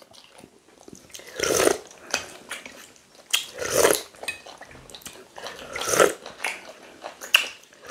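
Close-up eating sounds: chewing and sucking meat off chicken bones and slurping pepper soup from a spoon, in several short wet bursts with small clicks between.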